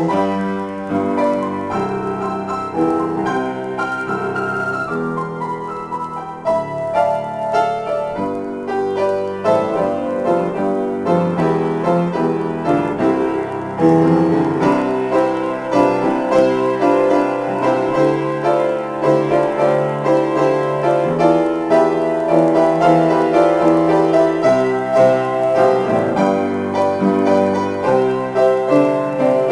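Grand piano played solo in a free improvisation: a steady stream of notes and chords. It grows louder about fourteen seconds in.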